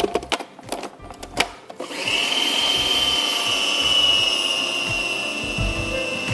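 A few plastic clicks and knocks as the food processor's lid and pusher are fitted. About two seconds in, its motor starts and runs steadily with a high whine that falls slightly in pitch while it blends flour, cold butter and soured cream into a pastry dough.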